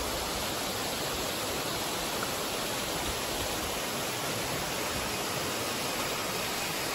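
Flowing water rushing steadily, an even hiss without any tones.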